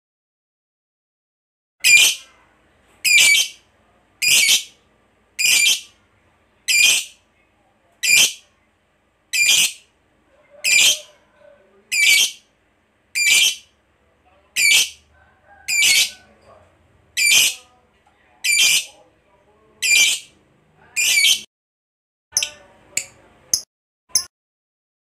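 A lovebird giving short, shrill single calls, evenly spaced about once every 1.2 seconds, starting about two seconds in. Near the end the calls come quicker and shorter.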